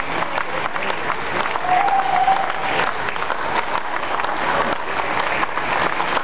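A crowd applauding: dense, steady clapping from many people, with a short held note rising above it about two seconds in.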